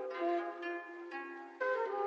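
Background music: a melody of short notes changing every fraction of a second, getting louder about one and a half seconds in.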